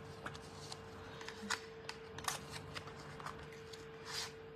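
Faint rustling and light clicks of a small cardboard box being opened and its paper leaflet handled, with a longer rustle about four seconds in as the tube slides out of the box.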